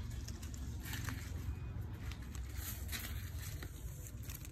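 Mai (yellow apricot) leaves rustling and brushing close to the phone as a hand parts the foliage, with scattered faint clicks over a steady low rumble on the microphone.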